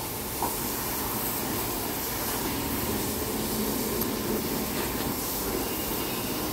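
Car-wash equipment running with a steady hissing rush.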